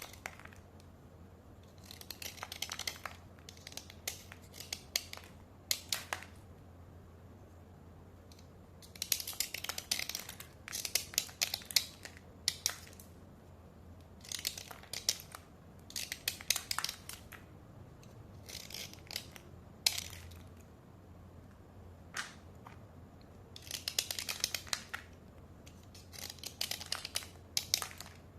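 Slate pencils being dry-scraped: clusters of short, gritty scraping strokes with pauses between them.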